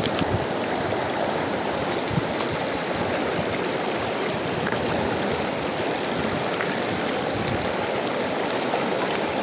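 River water rushing steadily over stones, an even flowing noise.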